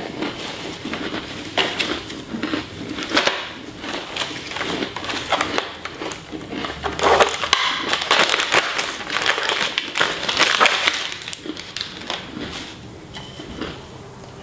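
Crunchy crackers being chewed close to the microphone, then, about halfway through, a plastic snack wrapper crinkling and crackling loudly as it is torn open by hand.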